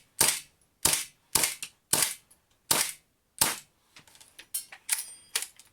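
WE gas-blowback airsoft Colt 1911 firing six sharp shots about half a second apart, each crack with the slide cycling. A few lighter clicks and rattles follow near the end.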